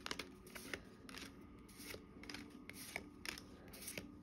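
Pokémon trading cards being flipped through by hand: faint, irregular snaps and slides of card stock as each card is pulled off the stack.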